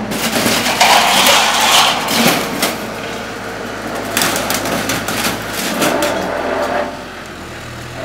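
Backhoe loader's engine running as its front bucket shoves into a sheet-metal canopy, with metal panels crashing and scraping and a string of sharp impacts, loudest in the first two seconds and again around four to five seconds in.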